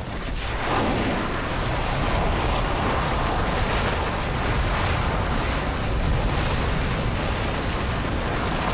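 Nyiragongo's lava lake churning and spattering: a steady, loud rushing noise with a deep rumble beneath, swelling up about a second in.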